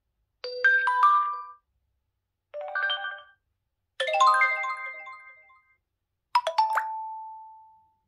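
Four short, different digital notification chimes from a Xiaomi Mi 11 phone, played one after another with silences between. Each is a quick run of bright electronic notes; the last ends on a single held tone that fades out.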